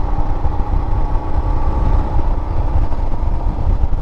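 Motorcycle engine running at a steady idle after a first service with a valve adjustment.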